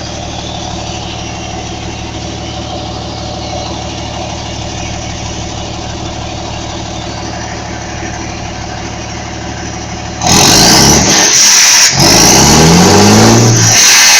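Volkswagen 31.320 truck's diesel engine with a straight-pipe exhaust idling steadily, then revved hard about ten seconds in: very loud, with the revs climbing and dropping back a couple of times.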